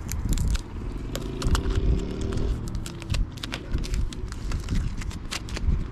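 Blue painter's tape being peeled off a car's side-mirror cover: a run of quick, irregular crackles and ticks, with a low rumble underneath.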